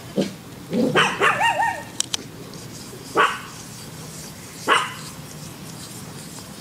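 A dog barking several times: a bark at the start, a quick run of barks with a wavering, yelping whine about a second in, then single sharp barks at about three and at about four and a half seconds.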